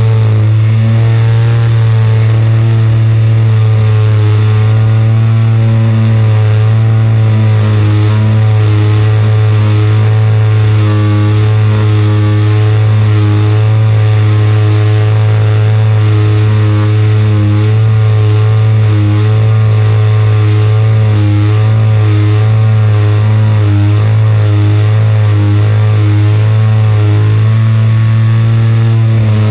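AGM 30cc single-cylinder two-stroke petrol engine of a large radio-control model plane running steadily in flight, heard loud and close from a camera mounted on the airframe, its pitch wavering slightly with the throttle.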